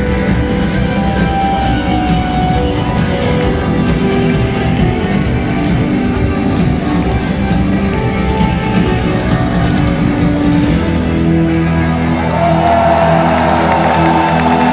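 Live rock band with electric guitars, bass and drums playing the closing bars of a song, loud, with the arena's echo. About eleven seconds in the drumming stops and held chords ring on, with crowd noise rising under them.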